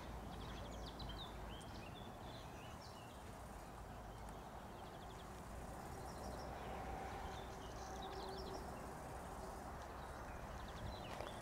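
Small birds chirping in short trills over a low steady rumble, with a faint steady hum for a few seconds around the middle.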